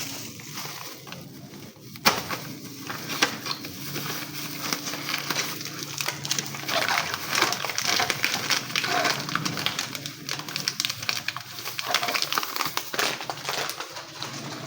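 Dense, irregular crackling and rustling that starts with a sharp click about two seconds in.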